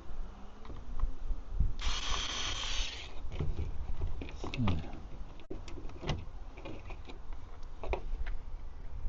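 Small metal parts of a handbrake extender kit clicking and knocking as it is taken apart by hand, with a rasping burst lasting about a second roughly two seconds in.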